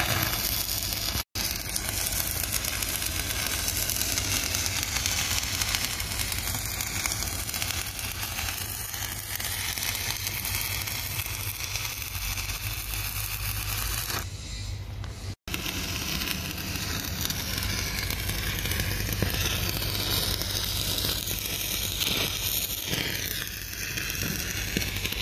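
Stick-welding arc crackling and sputtering steadily as a rod electrode burns along a joint on a steel pipe tee. The sound drops out for an instant twice, about a second in and around the middle.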